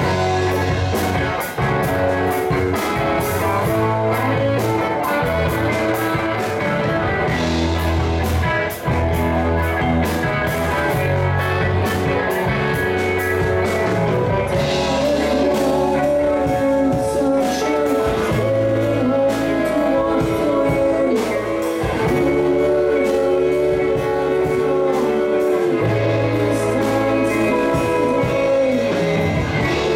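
Live rock band playing: electric guitars, bass guitar and keyboards over a steady drum beat, with a singer.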